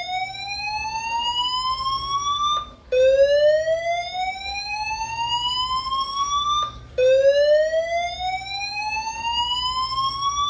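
Fire alarm evacuation speakers sounding a slow-whoop tone during a building fire alarm test: a loud tone rising steadily in pitch over about four seconds, repeated with a short break between whoops, about three times.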